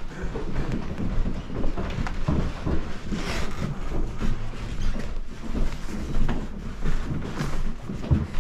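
Handling noise: irregular low thumps and rustles from footsteps and a handheld camera being carried, with bags on a wooden shelf being rummaged through near the end.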